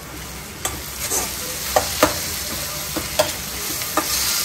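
Onion-tomato masala sizzling in an iron kadai as ginger-garlic paste is stirred in with a steel slotted spatula. Several sharp clinks of the spatula striking and scraping the pan stand out over the steady frying hiss.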